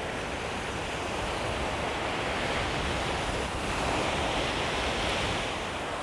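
Small sea waves washing up onto a sandy beach and drawing back: a steady surf hiss, with a wash swelling about four seconds in.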